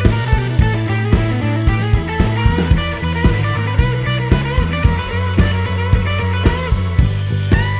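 Background music: guitar melody over a steady drum beat.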